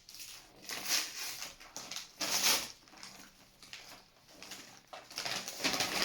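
Packaging rustling and crinkling as a gift is opened by hand, in several separate bursts, the loudest about two and a half seconds in.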